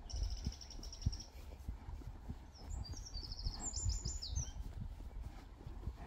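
Small songbirds singing: a fast high trill in the first second, then a quick phrase of varied high notes around three to four seconds in. Underneath, soft low thuds of the Friesian horse's hooves walking on grass.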